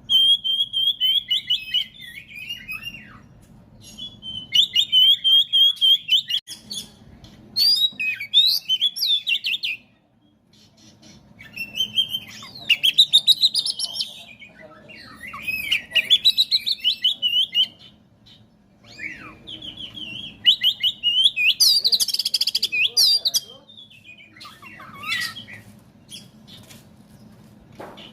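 Oriental magpie-robin (kacer) singing in a run of loud phrases of rapid, high chattering trills. Each phrase lasts two to four seconds, with short pauses between them.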